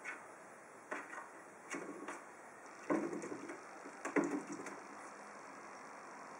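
Blue plastic watering can knocked and rattled by a cat's paw: about six irregular hollow knocks, the loudest about three and four seconds in.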